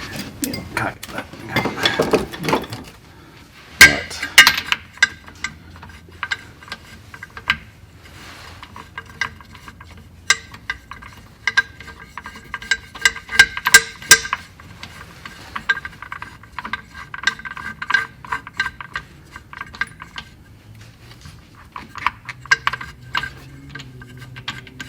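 Hand ratchet clicking in quick runs as bolts are wound out, with metal clinks and a sharp metal knock about four seconds in.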